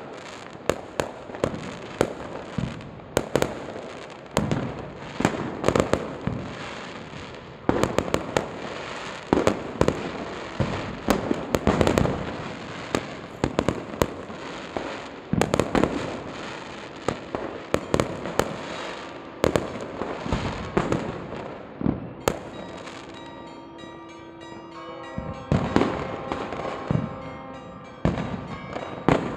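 Fireworks and firecrackers going off in a dense, continuous series of sharp bangs and crackles, some bursts echoing. About three-quarters of the way in, a mix of steady ringing tones at several pitches joins in under the bangs.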